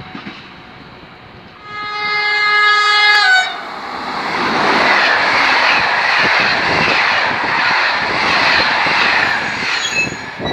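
A passing passenger train sounds its horn, a chord of several tones held for about a second and a half that drops in pitch as the train reaches the microphone. The train then runs past at speed, a steady rushing noise of wheels on rail for about six seconds.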